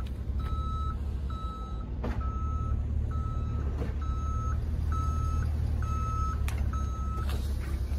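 Tow truck's reversing alarm beeping steadily at a single pitch, about one beep a second, as the truck backs up, over a low steady rumble. The beeping stops shortly before the end.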